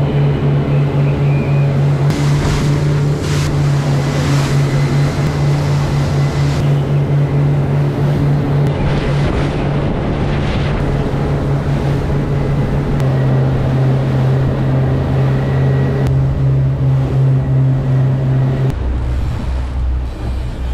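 Twin Suzuki outboard motors running at speed, with the hull slapping through choppy swell and spray hissing past. Near the end the engine note drops lower as the boat slows to troll.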